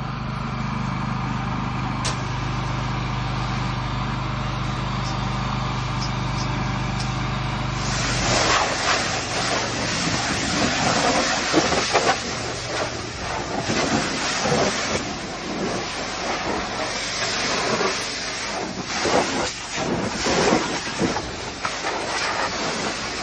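A steady engine hum for about the first eight seconds, then a pressure washer wand blasting water onto a tanker trailer's wheels and tires: a loud hiss of spray that surges and dips as the jet moves over the rubber and rims.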